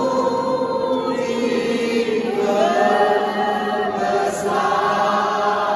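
A group of voices singing a slow Indonesian hymn in unison, holding long notes that change pitch about once a second, with a long echo from the stone walls of the church.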